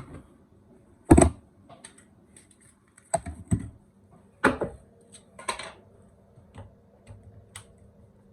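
Handling of a ceiling-mounted fire alarm heat detector and its base as it is taken down: a string of irregular clicks and knocks, the loudest about a second in, with a cluster around three to five and a half seconds and lighter ticks after.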